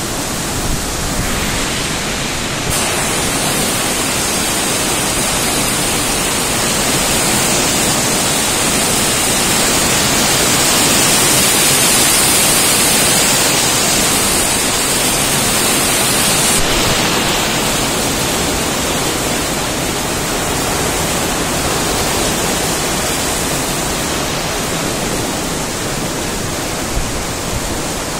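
Heavy thunderstorm rain falling steadily, swelling louder around the middle and easing again.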